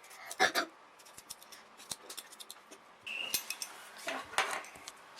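A raw potato being peeled by hand: the blade scrapes the skin in quick, short strokes, with two louder scrapes, one about half a second in and one near the end.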